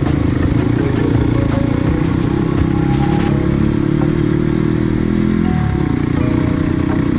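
Dirt bike engine running under way on a rough road, with clattering clicks through the first half. The engine note dips briefly about five and a half seconds in, then picks up again.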